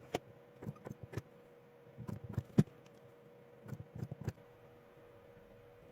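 Scattered small clicks and taps of lithium-ion battery cells and pack parts being handled and fitted together while the cells are connected, in four short clusters with the sharpest click about two and a half seconds in.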